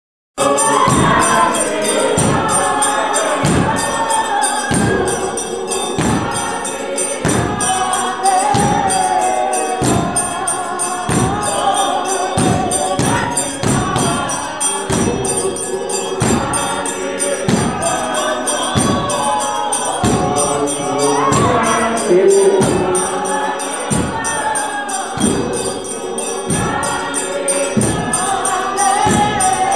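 A choir singing a gospel song over a steady percussive beat, starting about half a second in.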